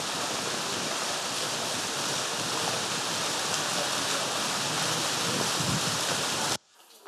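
Steady splashing of water from a plaza fountain's many spray jets falling into its basin; the sound cuts off suddenly near the end.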